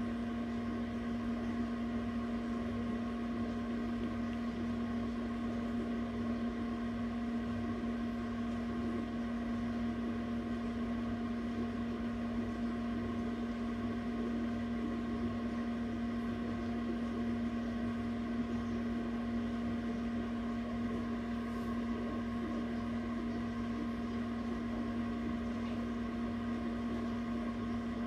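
Egg incubator humming steadily, a constant machine drone with one strong low tone and fainter higher tones over a low rumble, as from its fan motor running.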